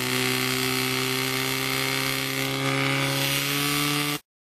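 Portable fire pump engine running hard at high revs, driving water through the attack hoses, its pitch nearly steady over a hiss of rushing water. Cuts off suddenly about four seconds in.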